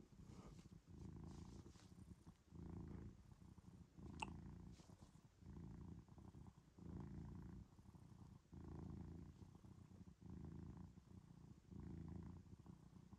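Persian cat purring up close, a contented purr that swells and fades in a steady rhythm about every second and a half. There is a brief sharp click about four seconds in.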